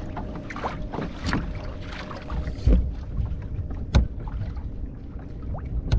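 Water slapping against a kayak hull on choppy water, with wind buffeting the microphone. Two sharp knocks come about halfway through and about four seconds in.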